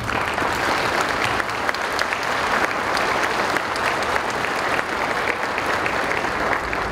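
Audience applauding, a dense mass of handclaps that starts suddenly and dies away near the end.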